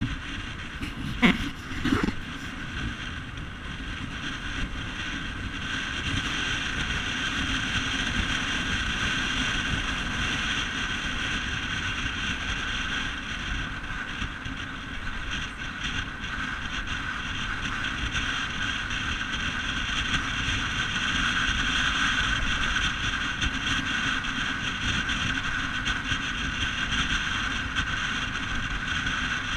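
Motorbike ride heard from a bike-mounted camera: the engine runs steadily with road and wind noise on the microphone. There are two sharp knocks about a second and two seconds in.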